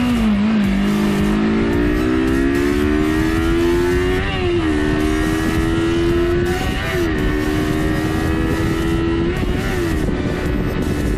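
Kawasaki Versys motorcycle's parallel-twin engine pulling away and accelerating through the gears: the revs climb steadily, then drop at an upshift about four, seven and ten seconds in. A rush of wind and road noise runs underneath.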